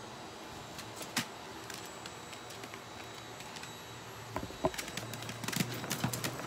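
Chihuahuas' claws clicking and scratching against a wire pen as they jump up at it. There is a short squeak about four and a half seconds in, then a quick flurry of clicks near the end.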